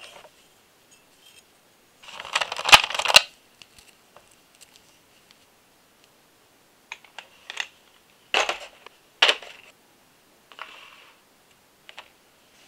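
Small metal parts of a model engine kit handled from a plastic parts tray: a dense metallic clinking and rattling about two seconds in, then scattered sharp clicks and taps, and a soft rustle near the end.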